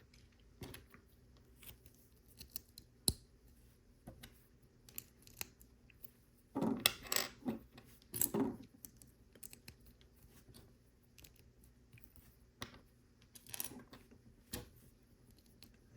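Plastic Lego bricks being handled and pressed together: faint scattered clicks and taps, with a short run of rattling and rustling about seven to eight seconds in.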